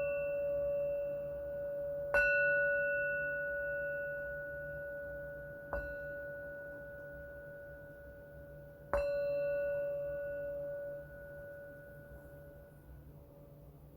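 A singing bowl struck three times, the third time lightly, with the ring of an earlier strike already sounding. Each strike leaves a long, slowly fading ring of the same pitch, and the last ring dies away near the end.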